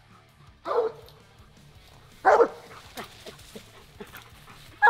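Treeing Walker coonhound barking at the tree: three loud, short barks a second or two apart, the hound's tree bark that signals a raccoon treed above it.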